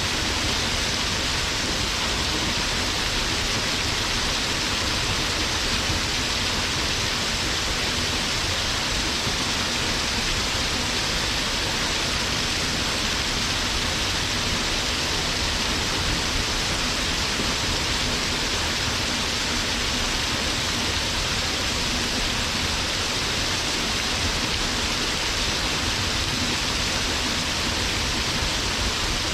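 Waterfall: water falling and splashing onto rock in a steady, even rush.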